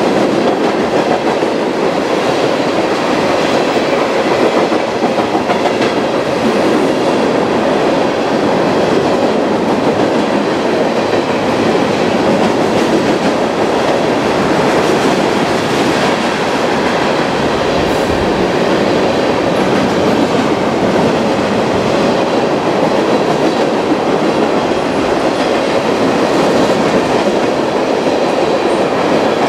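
Cars of a mixed freight train (tank cars, covered hoppers and boxcars) rolling past on the adjacent track, a loud, steady noise of steel wheels on rail.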